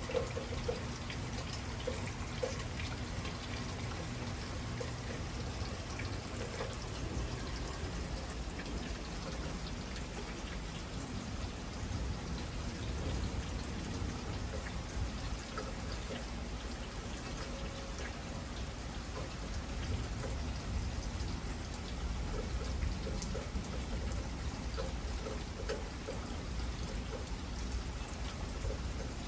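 Heavy thunderstorm rain falling steadily, with many individual drops ticking close by.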